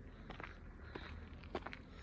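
Faint footsteps of a person walking, a few irregular steps over a low background rumble.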